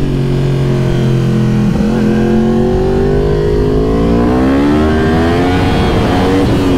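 Yamaha R1 sport bike's crossplane inline-four engine under way. There is a brief break in the note about two seconds in, then the engine note climbs steadily for a few seconds as the bike accelerates and holds near the end.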